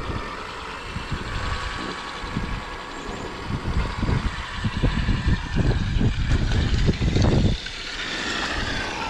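Traxxas X-Maxx electric RC monster truck running on 8S power: a steady high electric-motor whine with uneven low rumbling, loudest from about four seconds in until it drops away sharply at about seven and a half seconds.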